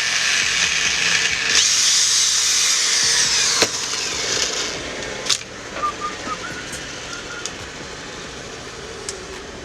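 Repaired angle grinder running on a test with its new bearing and switch, a steady high whirring. About three and a half seconds in there is a click and the sound dies away gradually, with a few scattered clicks.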